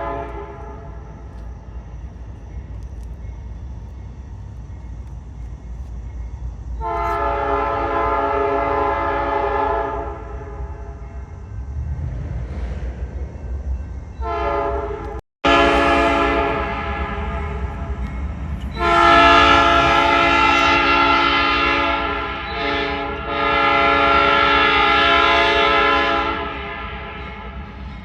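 Nathan P5 five-chime horn on a Norfolk Southern locomotive sounding a chord of several tones: one blast of about three seconds, then after a pause a run of long blasts with short breaks, over the steady low rumble of the train.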